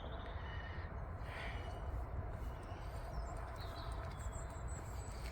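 Outdoor ambience: a steady low wind rumble on the microphone, with a few faint bird chirps about the middle.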